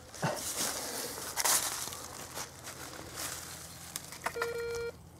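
Crunching and scraping of soil and dry leaf litter being dug out by a gloved hand, in many short irregular strokes. Near the end a short steady beep from a Garrett ACE 250 metal detector, signalling metal still in the hole.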